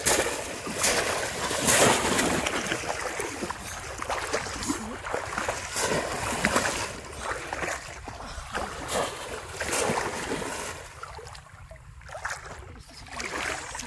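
Pond water splashing hard and irregularly as a wader thrashes the surface with his hands, in many short strokes. The splashing dies down for a couple of seconds near the end.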